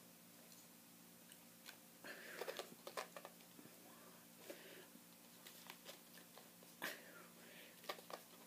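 Near silence with a faint steady hum, broken by a few soft clicks and short rustles, the loudest about two to three seconds in and again near the end.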